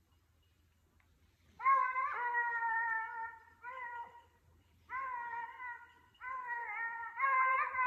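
Hare hounds baying in long, drawn-out howls that fall slightly in pitch, starting about two seconds in and repeating with short breaks, with two voices overlapping near the end. This is the cry hounds give while running a hare's track.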